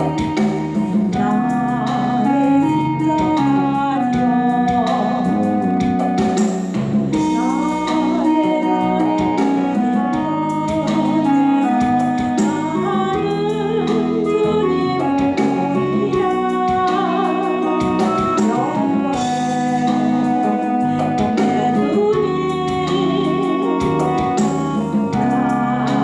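Christian praise music from a hymn medley: a melody, partly sung, over a steady guitar and band accompaniment.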